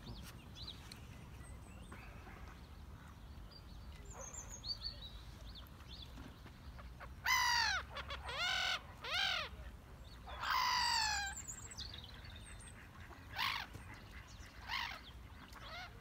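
Loud, harsh calls of water birds, about six of them in the second half, one drawn out longer than the rest, with faint small-bird chirps earlier.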